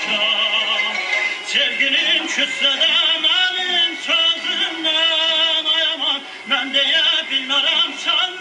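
Music with a man singing, his voice wavering in heavy vibrato.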